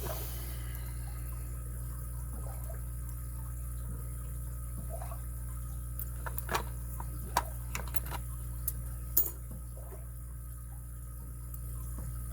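Small metallic clicks and taps of a lock pick and tension wrench working the pin stack of a padlock, a cluster of sharper clicks in the middle, over a steady low hum.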